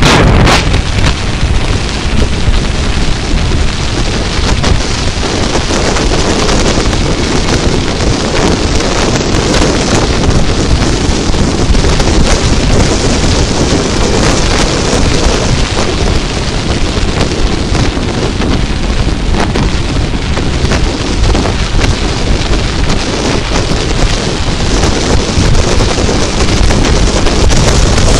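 Heavy wind noise buffeting the microphone of a camera mounted on a moving sport motorcycle, with the bike's running and road noise mixed in beneath it. A short thump comes just after the start.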